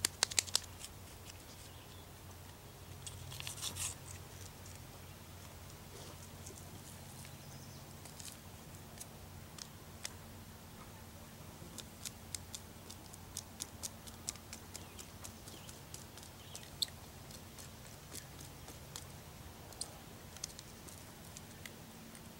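Handling of a small single-serve plastic creamer cup over an enamel mug: a few sharp clicks at the start, a short rustle about three to four seconds in, then scattered light ticks and crinkles.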